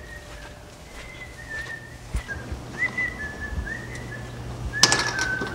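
A person whistling a short, wavering tune of quick notes, over a low steady hum. A few sharp knocks or clatters near the end.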